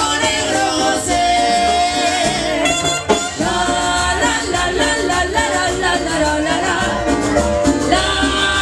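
Cumbia band playing with a lead singer over it, a short break about three seconds in.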